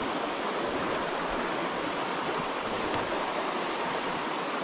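Creek water running steadily over a shallow rocky riffle.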